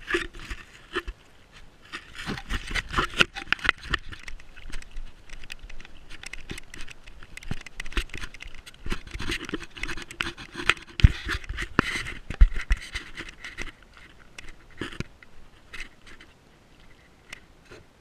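Irregular crunching and scraping on a shell-and-gravel beach, with many sharp clicks and knocks from the camera being handled and carried; busiest in the middle, thinning out over the last few seconds.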